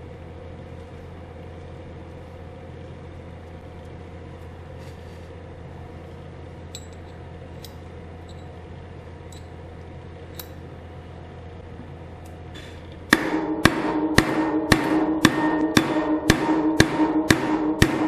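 Hammer blows on a steel bearing drift, driving the second wheel bearing into a Lambretta TV175 disc brake hub. The blows are sharp and ringing, about two a second, and start about 13 seconds in. Before that there is a steady low hum and a few faint clicks of parts being handled.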